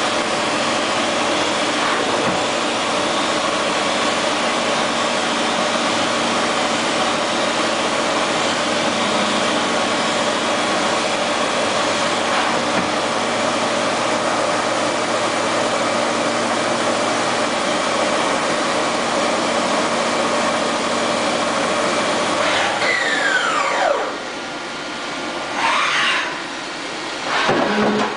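Kitamura Mycenter 2 CNC vertical machining center running with a steady mechanical whir and several held whining tones. About 23 seconds in, a whine slides down in pitch and the running noise drops. Near the end come two short whining bursts of its motors, the last also falling in pitch, as an axis moves.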